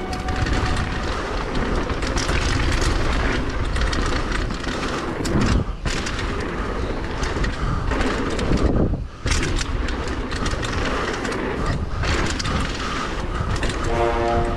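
Rushing wind and the rough rumble and scrape of riding fast over snow, full of small crackles. It drops away for a moment twice, about six and about nine seconds in.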